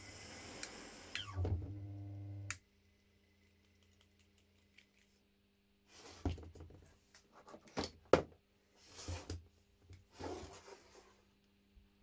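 Brushless washing machine motor running with a mains hum and whirring. It cuts off suddenly about two and a half seconds in. A series of knocks and thumps follows as the motor is handled and turned over on the wooden table.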